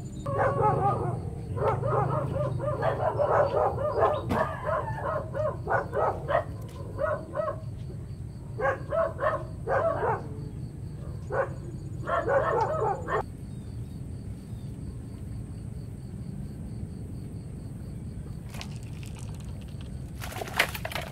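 A dog barking in runs of short, pitched barks for roughly the first thirteen seconds, then falling quiet. A single sharp click near the end.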